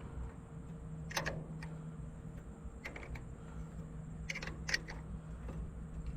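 A few scattered sharp metallic clicks and clinks, in small clusters, of hand tools and hardware being handled at a battery cable terminal, over a steady low hum.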